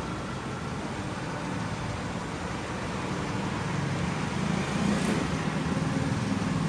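Mercedes SLK230's supercharged four-cylinder engine idling steadily after a remote start, growing slightly louder over the last couple of seconds.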